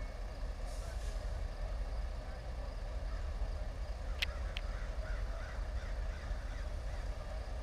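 CSX diesel locomotive rumbling steadily as it rolls slowly past at the head of a freight train, with two sharp clicks about four seconds in.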